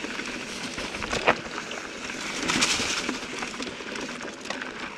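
Mountain bike riding over a rocky trail: tyre and frame noise over rock and grit, with two sharp knocks about a second in and a louder rush of noise around two and a half seconds in.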